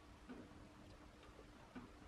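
Near silence, with a few faint, light ticks of fingers handling wires and small components inside a power amplifier chassis.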